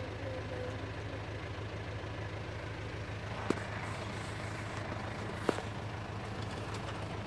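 Steady engine hum and road rumble heard from inside a car's cabin, with two sharp clicks, one about three and a half seconds in and one about five and a half seconds in.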